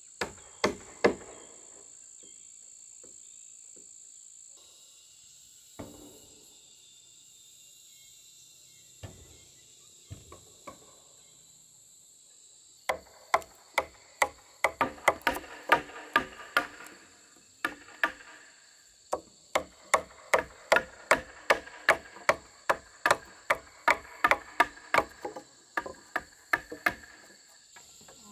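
Wood chisel being struck again and again, chopping into a log: a few scattered knocks at first, then from about halfway through a steady run of sharp blows, about two a second, each with a short ring. Insects shrill steadily in the background.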